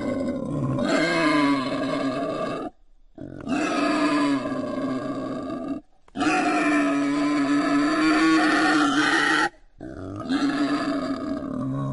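Wild boar calling: four long drawn-out grunting calls of two to three seconds each, with short silences between them.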